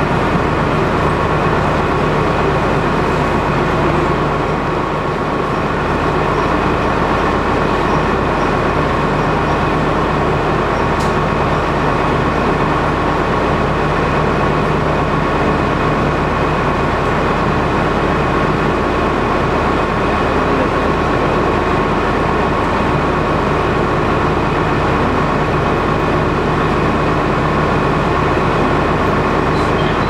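KiHa 200 series diesel railcar idling while standing at a platform, heard from inside the car: a steady low engine hum with a steady higher tone over it.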